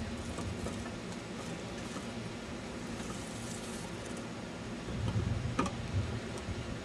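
Steady outdoor hiss, with a low rumble of wind on the microphone about five seconds in and a single sharp click just after it.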